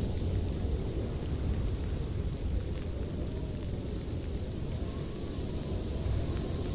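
Wind buffeting the microphone, a steady low rumble with a fainter hiss above it.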